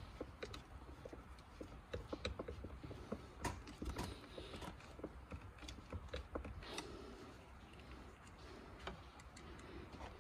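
Faint, irregular small clicks and taps as a hand screwdriver works inside a plastic car side-mirror housing and the parts are handled.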